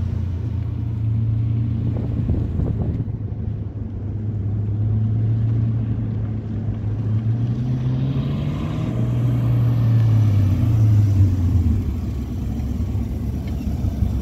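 A Ford 5.0 Windsor V8 in a Mazda Miata running at low speed, with a steady deep engine note. It fades as the car pulls away, then grows louder as the car drives back toward the listener.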